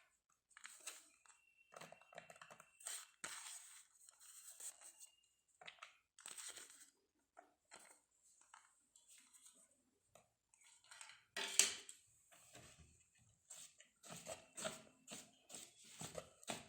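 A spoon scraping and knocking against a bowl as dry fruits are stirred into thick cake batter, in soft, irregular strokes, with one louder knock about eleven and a half seconds in.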